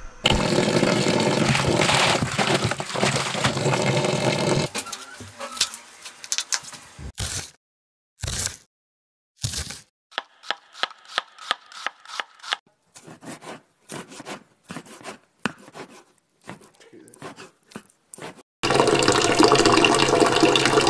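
Aluminium pressure cooker on a gas burner hissing loudly as it vents steam, then a kitchen knife chopping coriander on a wooden board in quick, even strokes, and the steam hiss returns near the end.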